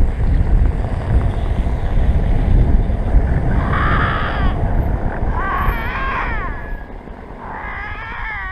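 Canada lynx calling on the road: a short harsh call about halfway through, then two drawn-out, wavering yowls. Under the calls is the low rumble of the vehicle rolling slowly on the snowy road, which eases off about seven seconds in.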